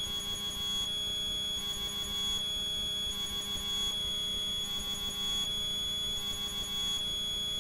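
A steady high-pitched tone over a low, muffled drone of the light airplane's engine and propeller, as picked up in the cockpit.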